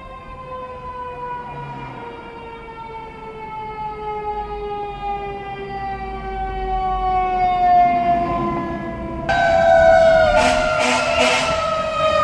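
Fire truck siren winding down in one long, slowly falling wail. About nine seconds in it gets much louder and closer, with a few short low blasts.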